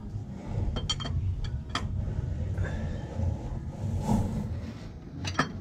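A few light metallic clicks from a wrench handled at the PTO solenoid, over a steady low rumble.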